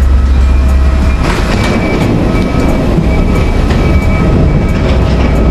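Steady low rumble of airport ground noise, with scattered clicks and a faint steady whine, heard while walking down a boarding corridor toward the aircraft.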